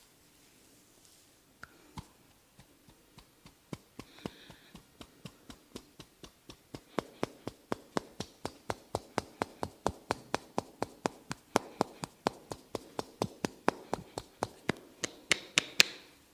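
Percussive massage strokes: sharp taps on the body, a few scattered at first, then a steady run of about three a second that grows louder. A quick, brighter flurry comes just before they stop near the end.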